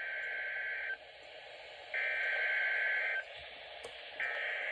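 Emergency Alert System SAME header: three bursts of buzzy digital data tones, each about a second long with a second's gap, over steady radio hiss. The header encodes a Child Abduction Emergency (Amber Alert). The first burst ends about a second in and the third begins near the end.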